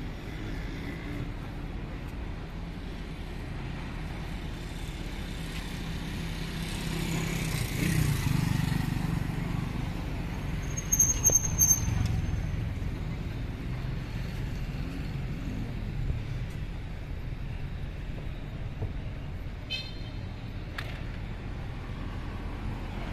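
Street traffic: steady road noise with vehicles going past, one louder pass about eight seconds in. A brief shrill high sound about eleven seconds in is the loudest moment.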